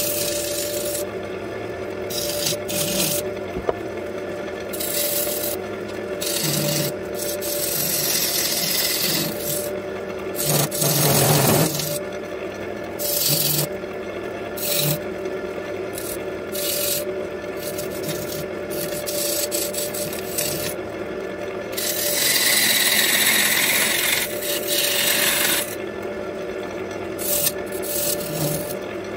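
Wood lathe motor humming steadily while abrasive rubs against a spinning black walnut bowl in repeated hissing strokes of a second or two. The longest and loudest stretch comes about three-quarters of the way through.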